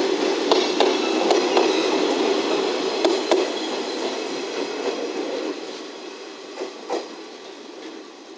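JR West 105 series two-car electric train passing close by and pulling away: steady wheel-on-rail running noise with pairs of clicks as the bogies cross track joints. It fades after about five seconds as the train recedes.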